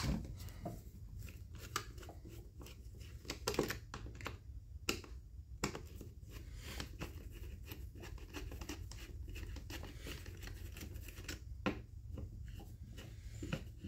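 Screwdriver clicking and scraping against the plastic intake and carburetor mounting of a disassembled Echo CS-271T top-handle chainsaw as the carburetor is being taken off: irregular small clicks and scratches.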